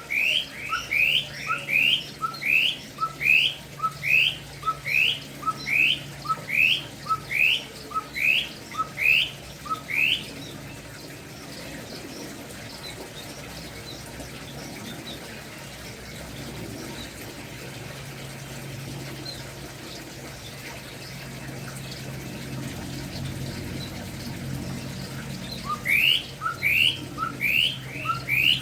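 Kopi-kopi (cucak kopi) songbird calling a fast series of short upslurred notes, about two a second, each led by a soft lower note. The calling stops about a third of the way in, leaving a low steady hum, and starts again near the end.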